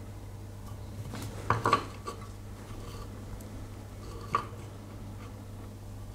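Small metal-cased battery cells from a 9-volt battery clicking and clinking as they are handled: a quick cluster of light metallic clicks about a second and a half in, and one more a little past four seconds, over a steady low hum.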